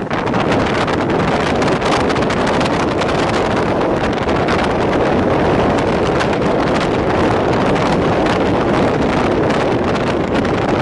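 Wind rushing over the microphone from a moving train, over the steady running noise of the train on the track.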